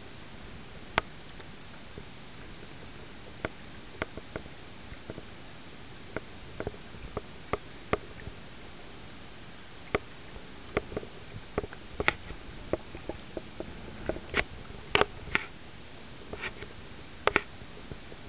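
Irregular sharp ticks and light splashes of small waves lapping close to a camera held just above shallow water, over a steady hiss and a faint constant high tone.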